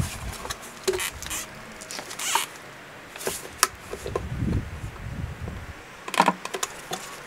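Gasoline being poured from a plastic gas can into a motorcycle fuel tank, coming in short uneven splashes, with scattered knocks and clicks of the can against the tank.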